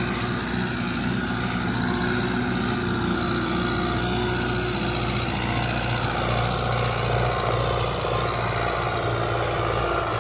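An engine running steadily at constant speed, loud and close to the microphone.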